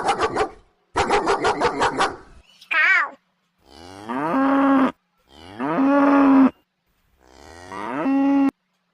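Cow mooing three times, each moo rising at the start and then held on a steady pitch. Before the moos, a dog barks in a fast run of short barks for the first two seconds or so.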